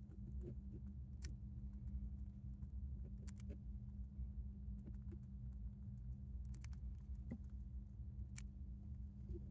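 Scattered sharp little clicks, a few seconds apart, as a hamster drinks water, over a steady low hum.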